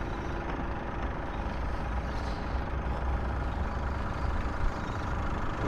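Boat engine running steadily, with a deep rumble and a constant hum.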